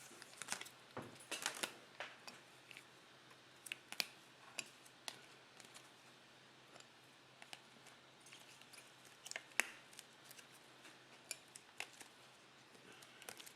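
Trading cards being handled and sorted by hand: quiet, irregular light clicks, taps and short rustles, with a few sharper ticks.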